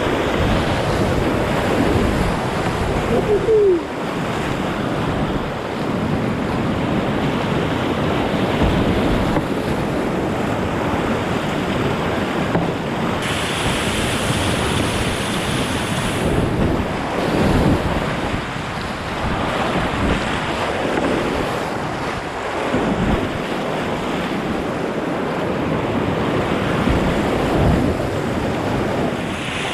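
Rushing whitewater of a mountain creek, with wind gusting on the microphone.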